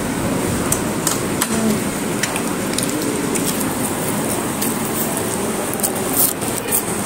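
Restaurant dining-room background noise: a steady hiss with scattered light clinks and taps of steel tableware, and now and then a faint voice.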